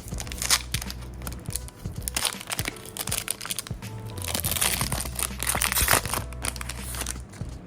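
Foil trading-card booster pack wrapper crinkling and tearing in a run of dense crackles as it is handled and opened, over background music.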